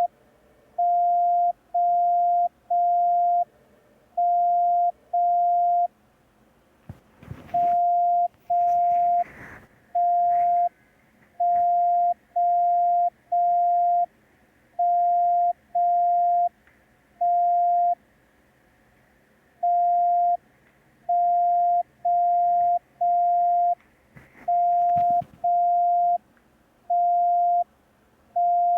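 Morse code practice tone, a steady beep near 700 Hz keyed in long dashes only, spelling groups of the letters T, M and O with short gaps within a letter and longer pauses between letters and words. A few brief noises break in about seven, nine and twenty-five seconds in.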